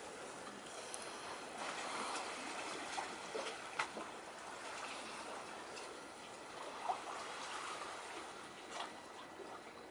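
Seawater lapping and trickling at the shoreline, with a few light splashes.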